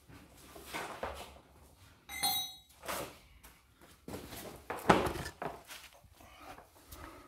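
Clattering and knocking of objects being handled and set down on a concrete garage floor, with a short ringing metallic clink about two seconds in and the loudest knock about five seconds in.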